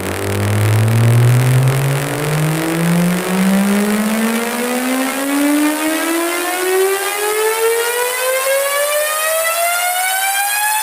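Synthesized test tone rich in overtones sweeping upward in pitch in small steps, from a deep bass hum to a high whine over about ten seconds, like a slow rising siren.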